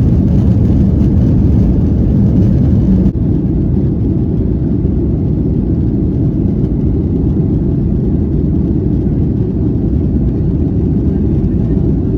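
Airliner cabin noise: a loud, steady low rumble of jet engines and airflow heard from inside the plane, with an abrupt change about three seconds in where one clip cuts to another.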